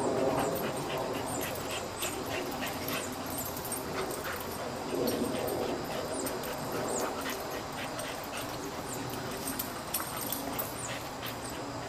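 Dogs at play: a Boxer and a young Rhodesian Ridgeback making dog noises, with many short clicks and scuffles throughout.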